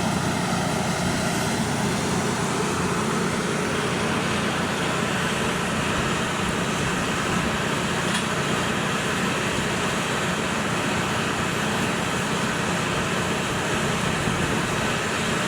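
Borehole drilling rig and its 18-bar air compressor running steadily, an even, unbroken machine noise.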